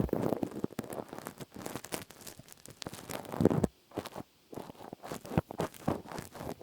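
Close-miked ASMR handling sounds: dense crackling and rustling full of small sharp clicks, with a brief pause a little before the middle.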